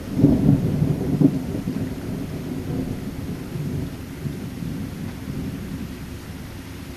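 Rolling thunder: a sudden loud clap just after the start, strongest for the first second and a half with a second peak about a second in, then a low rumble that slowly dies away.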